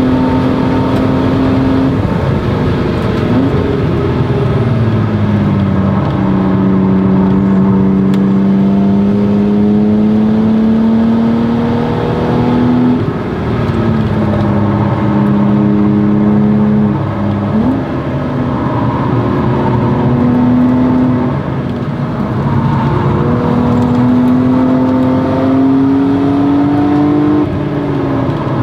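BMW E36 M3's 3.2-litre inline-six, breathing through a Stromung cat-back exhaust, pulling hard at track speed. Its pitch climbs steadily and then drops sharply several times as the driver changes gear and brakes for corners.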